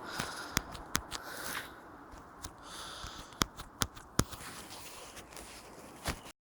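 A handful of sharp, irregular pops and clicks over a faint steady background hiss. The sound cuts out completely for a moment near the end.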